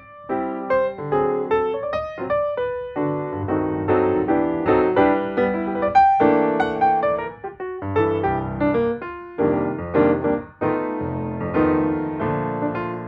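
Background piano music: a steady run of struck notes and chords, no voice.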